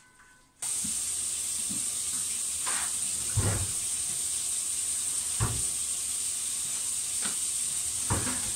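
A steady hiss that starts abruptly about half a second in, with several dull knocks and thumps as a microwave oven and other items are set down on a kitchen counter.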